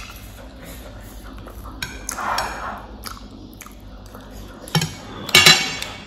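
Close-up eating sounds: a mouthful of spicy noodles being chewed, with a few sharp clicks of chopsticks against a ceramic plate and a louder clatter near the end as the chopsticks dig into the plate.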